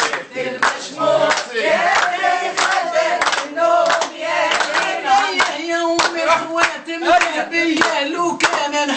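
A small group of people singing together with steady rhythmic hand clapping.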